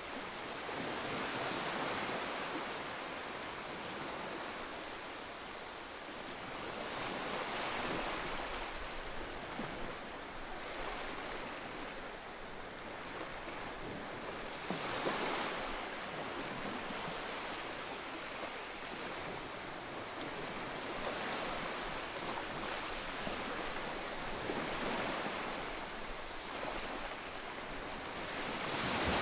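Ocean waves breaking and washing onto the shore, the surf rising and falling in surges a few seconds apart.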